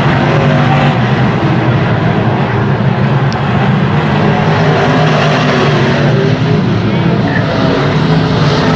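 Stock car racing engine running hard and steady, with its pitch wavering slightly as the throttle and speed change.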